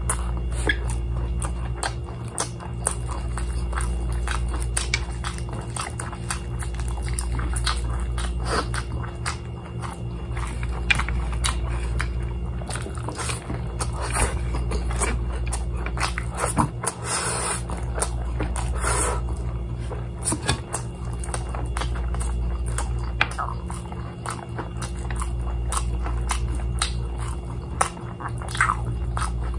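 Close-up eating sounds of fried chicken pulled apart and eaten by hand: bites, chewing and wet lip smacks, many short clicks scattered throughout. Under them, background music with a deep bass swells and fades every few seconds.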